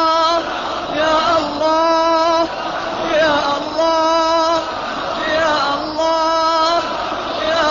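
A chanted supplication calling 'Ya Allah' over and over. It repeats about every two seconds, each call a gliding, wavering phrase ending in a long held note.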